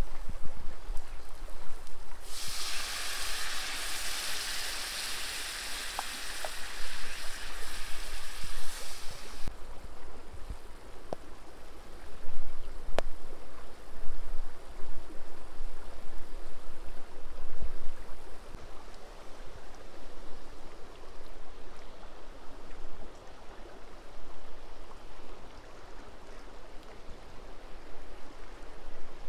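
Liquid ladled into a hot cast-iron skillet of fried mushrooms sizzles loudly for about seven seconds, starting a couple of seconds in. It then settles to a softer, steady hiss as the sauce cooks over the coals, with a few light clicks.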